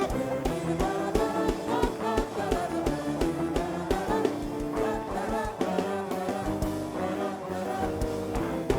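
Live gospel worship music: a band playing over a steady drum beat, with voices singing.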